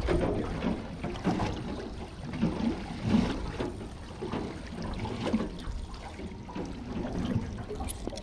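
Wind on the microphone and water noise aboard a small fishing boat out on the sea: an uneven low rumble and wash.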